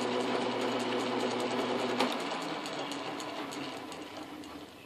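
Atlas metal lathe running with its chuck spinning, a steady machine hum. About two seconds in there is a click, and the motor and spindle then wind down, the hum fading gradually as the lathe coasts toward a stop.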